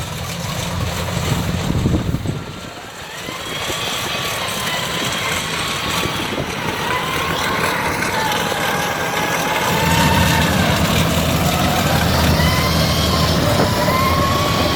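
Combine harvester running. Its engine drone eases off about two seconds in and comes back louder about ten seconds in, with a high wavering whine over it.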